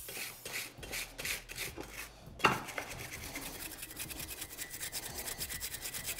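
Brush scrubbing a Yamaha Banshee's aluminium engine case half with degreaser, in rough back-and-forth strokes that become a fast, even rhythm after about three seconds. A single sharp knock, the loudest sound, comes about two and a half seconds in.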